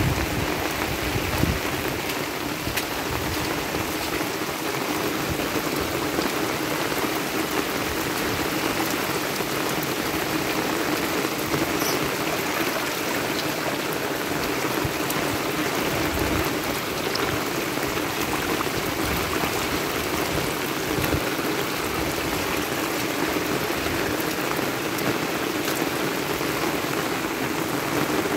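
Steady heavy rain falling on a dirt road and roadside plants, with runoff water streaming across the road.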